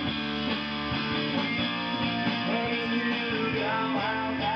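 Rock band music led by guitars with a steady beat, a demo track being recorded or played back in a studio.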